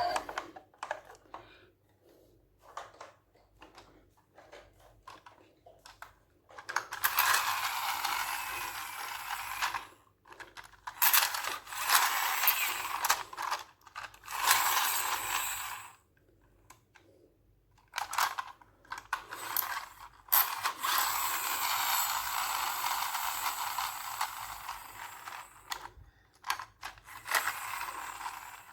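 Toy car's small plastic gearbox and wheels whirring and ratcheting as the car is run, in several spells of a few seconds each with short gaps between.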